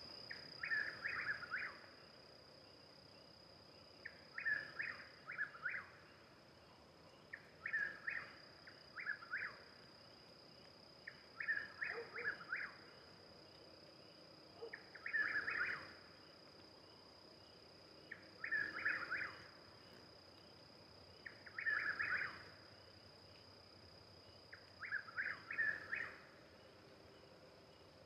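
Chuck-will's-widow singing its repeated 'chuck-will's-widow' song, a quick phrase of a few whistled notes about every three and a half seconds. A steady high-pitched tone runs underneath.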